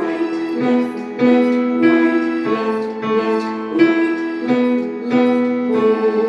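Piano playing a simple piece at a moderate pace, a new note or chord struck about every half to three-quarters of a second and left to ring.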